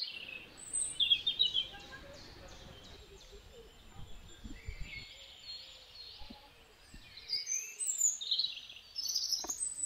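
Wild birds chirping and singing in short high phrases, coming in three bouts: at the start, about four seconds in, and near the end, over faint outdoor background noise.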